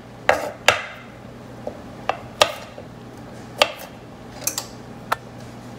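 Knife cutting baby cucumbers into cubes on a wooden cutting board: about eight sharp, unevenly spaced taps of the blade against the board.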